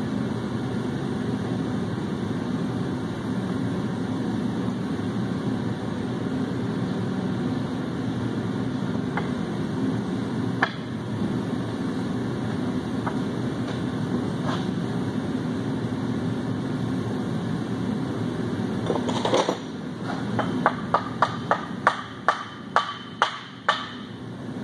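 A steady fan-like hum, then near the end a quick run of about ten sharp taps, roughly three a second: a mallet tapping a 7.3 Powerstroke camshaft into the block so its tapered, not straight-cut, gear meshes with the crankshaft gear on the timing marks.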